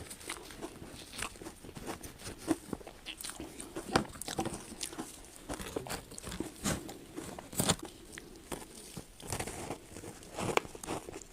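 Ice being bitten and chewed: irregular sharp crunches and cracks, a few each second, with two louder bites about four and eight seconds in.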